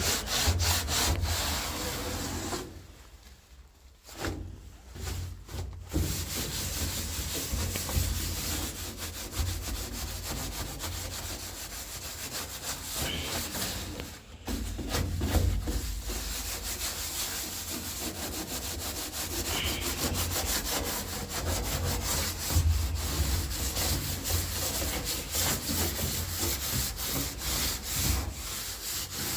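Rapid, repeated hand scraping and scrubbing strokes on a Classic Mini's steel floor pan, working off softened old sound-deadening residue. The strokes break off briefly about three seconds in, and again about halfway through.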